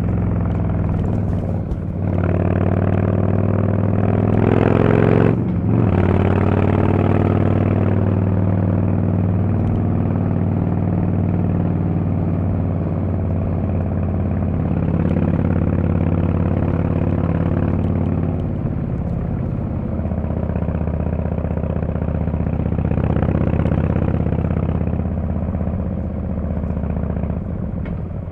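Harley-Davidson Fat Boy S's Screamin' Eagle Twin Cam 110 V-twin running through a Kesstech valved exhaust while the bike is ridden. Its note breaks briefly about two seconds in and again about five and a half seconds in, then holds a fairly steady pulling note that eases slightly later on.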